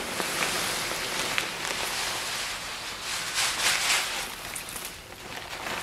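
Ice melt granules pouring from a bag through the fill hole into a plastic spreader hopper: a steady hiss that is heaviest about three to four seconds in.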